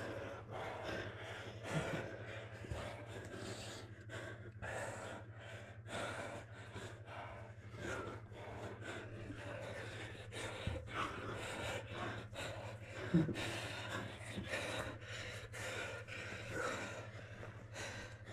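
Heavy breathing and gasps from grapplers straining against each other, with many short scuffs and knocks of bodies shifting on the mat.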